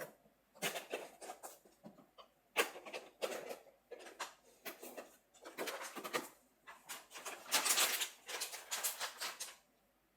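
Irregular rustling and scraping in bursts, like items being handled and moved about, stopping shortly before the end.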